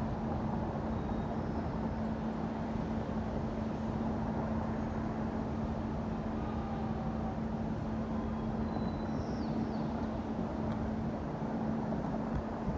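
Steady city traffic rumble with a constant low hum, a few faint high chirps about two-thirds of the way through.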